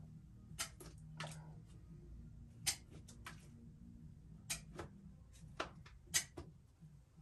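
About a dozen sharp clicks at irregular intervals, some in quick pairs, over a faint low hum.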